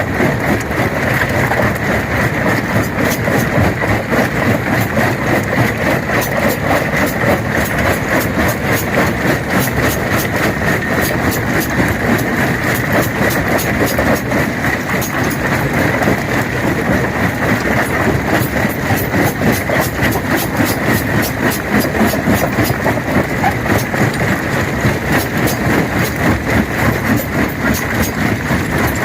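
Stone crusher running steadily under load, its heavy machinery droning with a constant rapid crackle of rock being broken.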